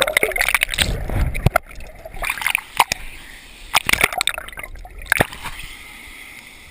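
Water splashing and sloshing in a swimming hole, with irregular close splashes.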